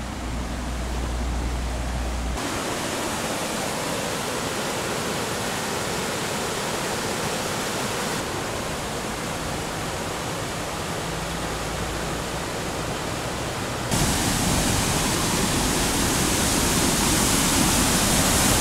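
Waterfall rushing: a steady noise of falling water that shifts abruptly a few times and gets louder a little past two thirds of the way through.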